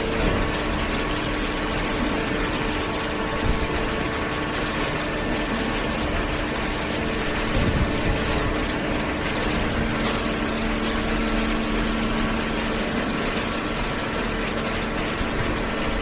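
A horizontal cardboard baler and its feed conveyor running, a steady mechanical hum with a few held tones.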